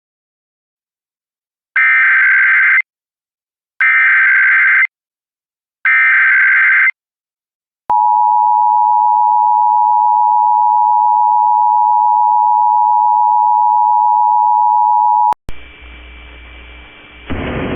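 Emergency Alert System (EAS) signal. Three short bursts of screeching digital header data, each about a second long and two seconds apart, encode a child abduction emergency (AMBER Alert). A steady two-tone attention signal follows for about seven and a half seconds and cuts off suddenly, then low hum runs until the broadcast audio comes back in near the end.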